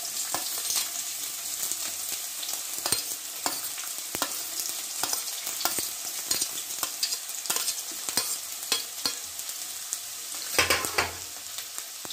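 Chopped onions sizzling as they go into hot mustard oil in a kadai, with a steady hiss and a spoon scraping and clicking against the pan and the steel plate every half second or so. A louder clatter comes about a second before the end.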